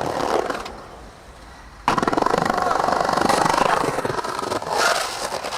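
Skateboard wheels rolling over rough pavement, a dense gritty rattle that starts abruptly about two seconds in after a quieter stretch.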